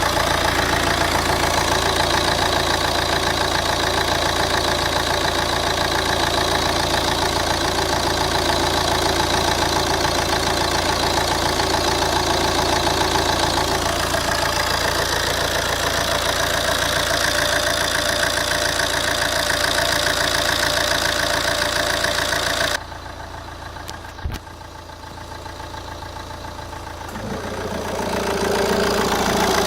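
Opel Vectra C's 1.9 CDTi Z19DTH four-cylinder diesel idling steadily. Near the end the sound drops much quieter for a few seconds, with a single click. The air-conditioning compressor then cuts in and a rattle starts with the engine sound, even though the compressor is brand new.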